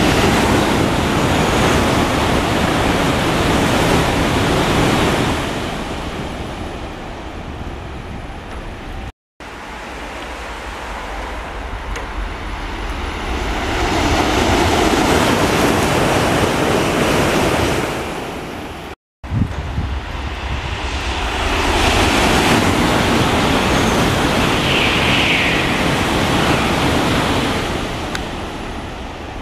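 N700-series Shinkansen bullet trains running through a station at speed: a rushing roar that swells and fades. Three passes are cut together, with the sound dropping out briefly at each cut.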